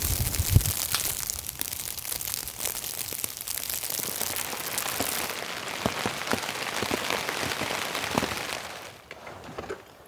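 Heavy rain falling on a tent, a dense patter of many small hits that fades out near the end.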